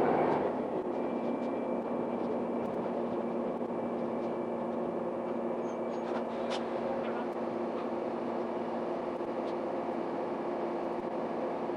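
Diesel railcar Akechi 102 coming to a stand, its running noise easing off about half a second in, then the engine idling with a steady hum and a few faint clicks.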